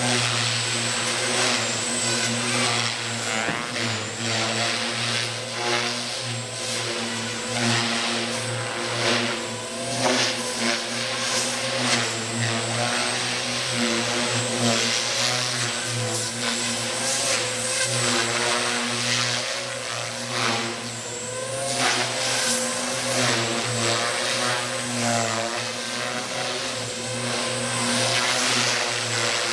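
JR Forza 450 electric RC helicopter flying 3D aerobatics: the motor and rotor whine rises and falls in pitch with the manoeuvres, along with the whoosh of the blades. It echoes in a large hall.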